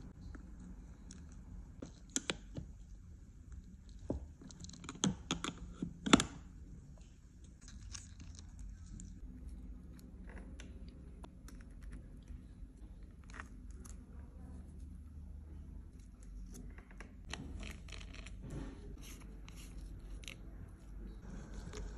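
Small metal reel parts and a screwdriver clicking and scraping as a baitcasting reel's handle is unscrewed and taken off. The clicks are scattered and light, with a sharper cluster about five to six seconds in.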